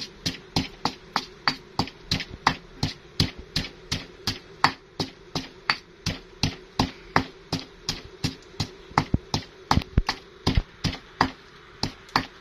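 Wooden pestle pounding in a stone mortar, crushing red chillies into a paste: steady, evenly spaced thuds about three a second.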